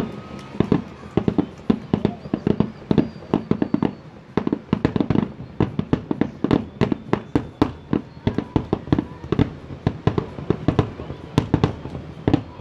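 Fireworks finale: an unbroken barrage of aerial shell bursts, several sharp bangs a second.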